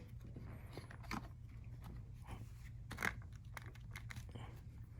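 Faint handling noises with a few light clicks as a small trim piece is fitted onto a steering wheel.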